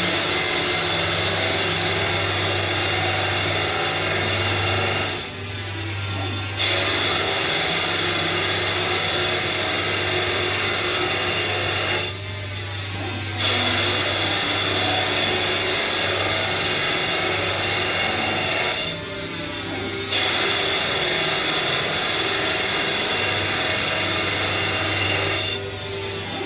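Tree UP-1000 CNC lathe cutting a cast iron backplate: a steady, loud cutting noise with high whining tones over a low hum. It drops away briefly about every six and a half seconds, four times, as one cutting pass ends and the next begins.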